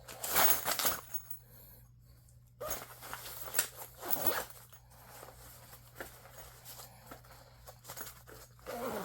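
A fabric sling bag being opened and handled: short rasping rustles of its closure and fabric, with a few sharp clicks.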